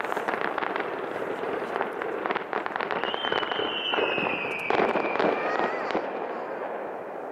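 Fireworks bursting: a dense run of crackles and bangs, joined about three seconds in by a high whistle that slowly drops in pitch for a couple of seconds. The bursts die away about six seconds in.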